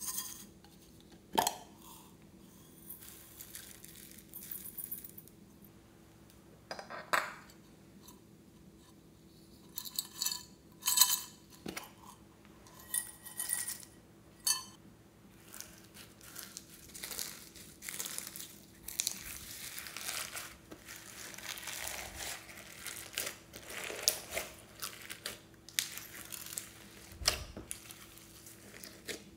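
Sharp clicks and knocks as a small tin is opened and handled, then rattling as toppings are shaken out of it onto slime in a glass dish. Over the second half, hands squish and knead the slime with foam beads and sprinkles mixed in, making a steady crackling, squelching noise.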